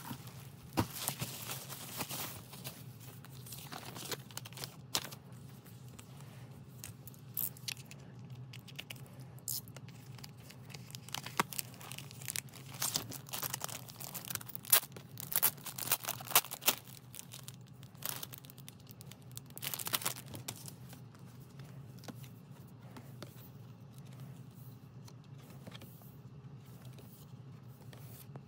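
Plastic shrink wrap crinkling and tearing as it is peeled off an album, in irregular bursts that are densest in the middle, with cardboard packaging being handled.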